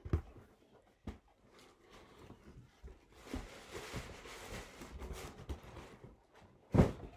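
Cardboard boot box being handled: a couple of light knocks in the first second, rustling for a few seconds, then a loud thump near the end as the box is set down.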